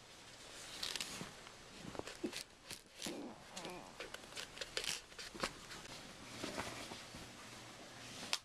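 Faint rustling of clothing and bedding with scattered small clicks and ticks, as a person shifts about on a bed.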